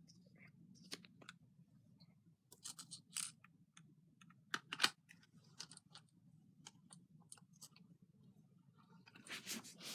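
Scattered light clicks and rustles of a plastic toy bubble blower and its packaging being handled. The loudest click comes about halfway, and a denser run of rustling comes near the end.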